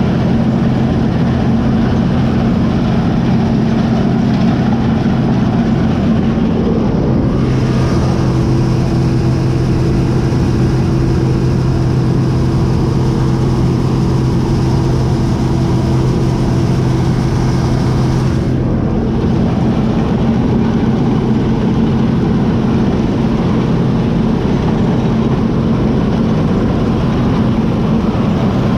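Early International Harvester Axial-Flow combine running steadily with a low engine hum. Between about 7 and 18 seconds in, a higher hum and more hiss join in, then drop away.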